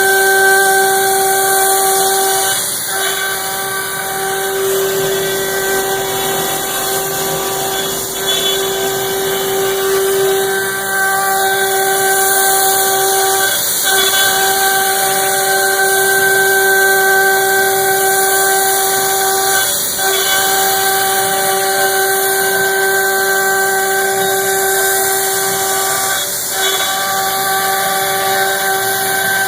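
4 hp HSD spindle on a Camaster Stinger 3 CNC router, with its end mill cutting aluminum, making a loud, steady, high-pitched whine. The whine breaks briefly about every six seconds.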